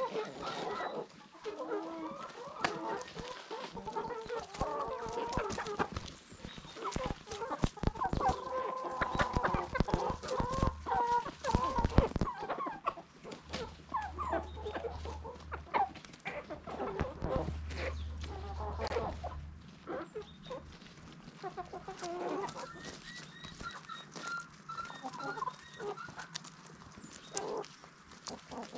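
Chickens clucking and calling throughout, with a run of sharp knocks and taps around the middle, the loudest about twelve seconds in.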